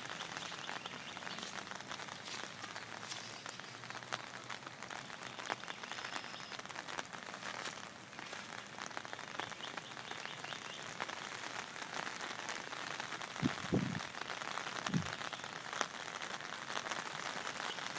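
Steady rain falling, an even hiss with the fine patter of individual drops. There are a few short low thumps about three-quarters of the way through.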